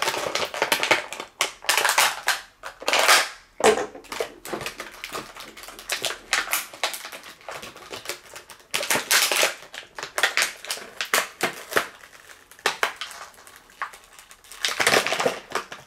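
Thin clear plastic toy packaging crackling and crinkling as it is handled and pulled open. It comes in irregular bursts, with louder crackles about three seconds in, around nine seconds in and near the end.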